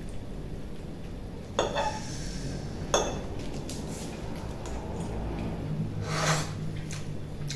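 A metal fork clinking twice against a ceramic dinner plate, about one and a half and three seconds in, with light scraping of food on the plate. Near the end comes a short mouth sound as fingers are licked.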